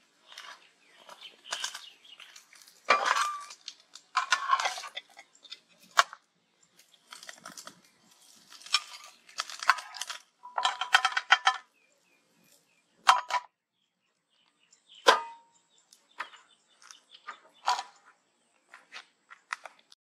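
Metal spatula scraping and tapping in a frying pan, lifting out a cooked omelet, in short bursts with gaps between them. A few sharp clinks ring out, the loudest about a quarter of the way in and again about three quarters of the way in.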